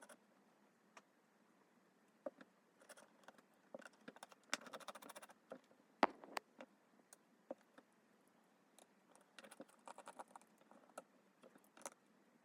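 Faint, scattered clicks and small scrapes of precision tools working on a smartphone's internal parts and screws, with one sharper tick about six seconds in.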